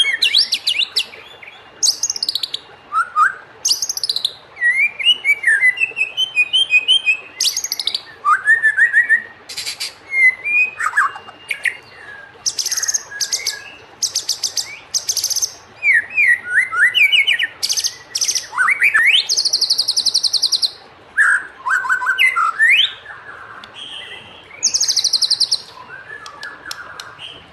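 White-rumped shama (murai batu) singing a varied song: quick sliding whistled phrases alternating with rapid, buzzy high trills, with short pauses between phrases.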